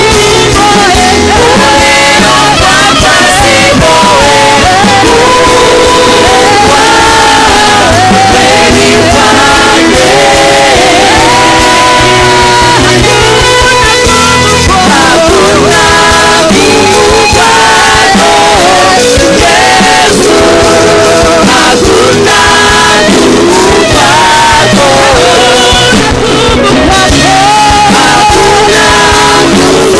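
Live gospel worship music: voices singing a melody over a full band, loud and continuous.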